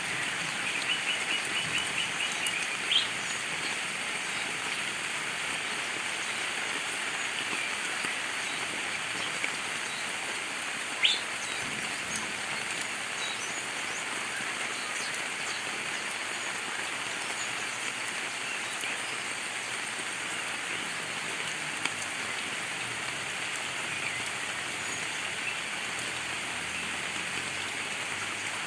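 Steady heavy rain hissing, with a small bird chirping over it: a quick run of short chirps about a second in, then single sharp calls a couple of times and fainter chirps later.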